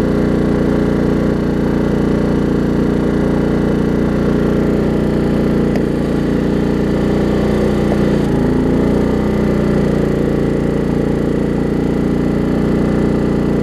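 Craftsman LT1750 riding mower engine running steadily, with a slight change in its note about eight seconds in. The electric PTO is switched on but the mower blades have not engaged, a fault later traced to a loose deck belt.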